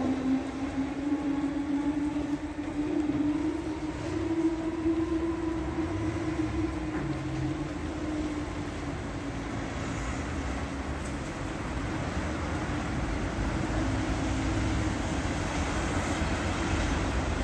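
Southern electric multiple unit pulling away and accelerating, its traction whine rising a little in pitch and then fading as it draws off down the line over a low rumble. Near the end, road vehicles cross the reopened level crossing.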